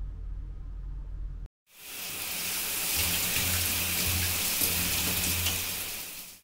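A low room hum, then, after a brief silent cut about a second and a half in, a shower running: a steady hiss of spraying water that fades in and cuts off at the end.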